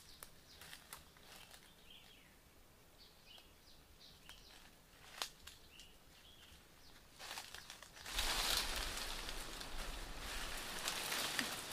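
Rustling and crunching of dry leaves underfoot and against the body as a person pushes through forest undergrowth and dead banana leaves; this gets loud about eight seconds in. Before that there are only faint snaps of twigs and a few soft bird chirps.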